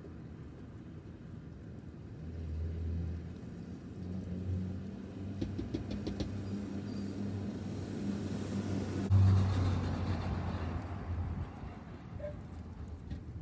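A car driving past at low speed. Its engine hum builds over several seconds, is loudest about nine seconds in, then fades away.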